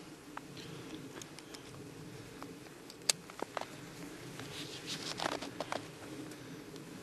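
Handling noise from a handheld camera: scattered faint clicks and crackles over a low steady hum, with a cluster of louder rustling and knocks about five seconds in as the camera is turned round.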